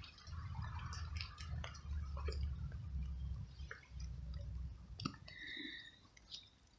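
Low rumbling noise on the microphone, coming and going, with scattered small clicks and ticks; a sharp click about five seconds in is followed by a brief high chirp.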